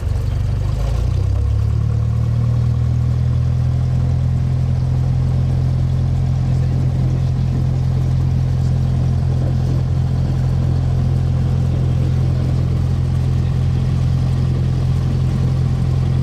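Cessna light aircraft's piston engine heard from inside the cabin, coming up to full power about a second or two in and then running at a steady high drone for the takeoff roll.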